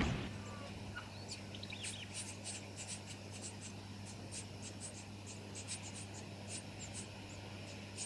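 Brown-headed honeyeater nestlings begging in the nest: a quick run of thin, very high-pitched squeaks, about three or four a second, starting about a second in. A steady low hum runs underneath.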